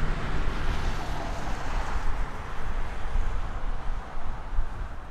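Jet airliner's engines fading away: a broad rumble and rush that dies down steadily over a few seconds.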